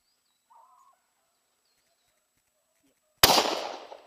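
A single close shot from a double-barrelled shotgun about three seconds in, sharp at the start, its echo dying away over under a second.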